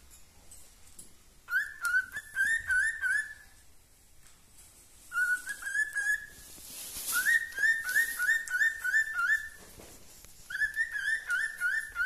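Male cockatiel singing: four phrases of quick, repeated up-slurred whistled notes, with short pauses between phrases.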